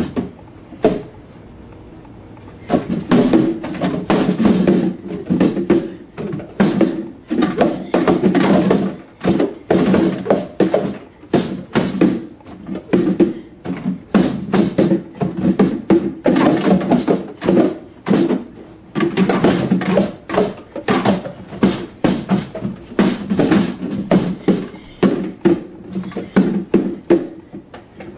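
Jumbo plastic sport-stacking cups clattering as they are rapidly stacked into pyramids and swept back down: a fast, continuous run of clacks of cup on cup and on the table mat, starting about three seconds in after a couple of single clicks.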